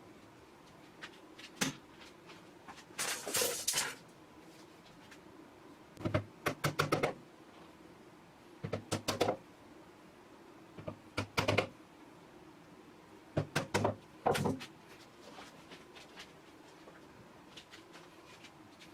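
Short bursts of knocking and clattering, six or so, about every two to three seconds, over a steady low hum.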